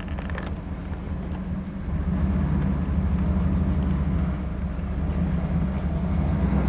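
A vehicle's engine running with road noise as it drives, a steady low hum that gets louder about two seconds in as it picks up speed.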